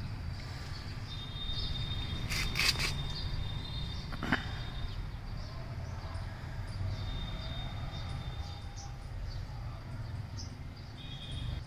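Outdoor garden ambience: short high bird chirps and a high steady buzz that comes and goes, over a low rumble, with two sharp clicks about two and a half and four seconds in.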